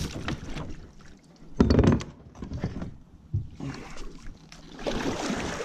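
Kayak paddle strokes: a double-bladed paddle dipping and pulling through the water in a series of separate splashing swishes, with a louder thump about a second and a half in.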